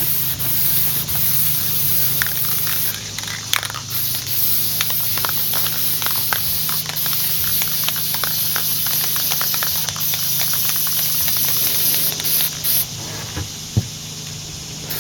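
Aerosol spray paint can hissing in long bursts with brief breaks. The spraying stops near the end, where there is a light knock.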